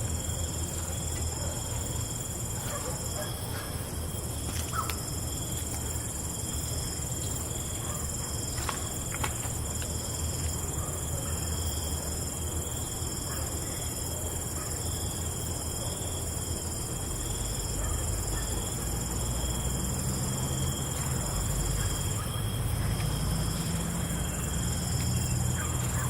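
Night crickets trilling without a break in several high, steady bands, over a low rumble that swells slightly in the last third.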